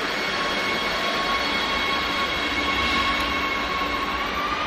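Madrid Metro train running alongside the platform: rumbling wheel and rail noise under a steady electric traction-motor whine. Near the end the whine starts to rise in pitch as the train accelerates away.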